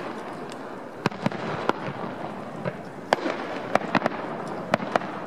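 Aerial fireworks display: firework shells going off in about ten sharp bangs at irregular intervals over a steady hiss, the loudest about three seconds in.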